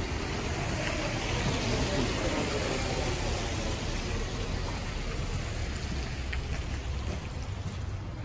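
Urban street ambience: a steady hiss of traffic with low wind rumble on the microphone, swelling slightly about two seconds in and easing off toward the end.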